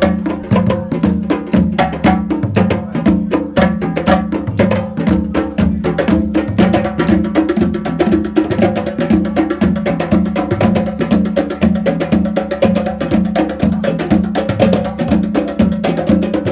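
African hand drumming: several drums playing a fast, steady groove of about two and a half deep beats a second, with sharp, clicking woodblock-like strokes over it.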